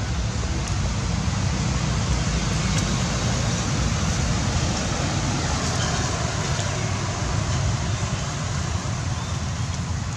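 Steady road traffic noise: a continuous low rumble with an even hiss above it.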